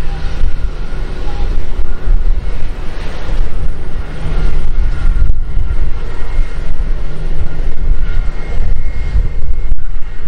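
Jet engines of an Airbus A319 airliner at taxi power as it rolls past: a loud, steady low rumble with a faint high whine.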